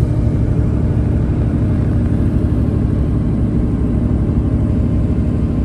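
Intercity coach running along the road, heard from inside the passenger cabin: a steady low drone of engine and road noise with a faint steady hum.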